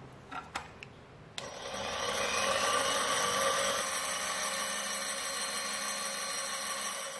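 A few light clicks, then about a second and a half in a bench drill press starts up and spins a 3D-printed metal gear at speed. It makes a steady whirring with high, even tones, and it dies away near the end.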